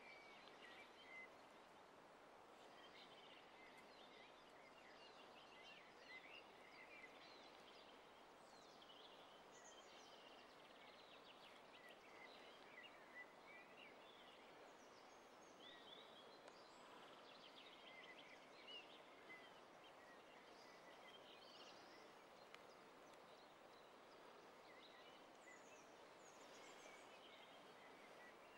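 Faint birdsong: many short chirps and trills from birds, scattered throughout over a steady hiss of background noise.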